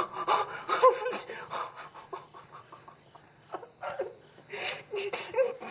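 A young man sobbing and panting in terror, quick ragged breaths broken by whimpers. The sobbing eases in the middle and comes back harder near the end.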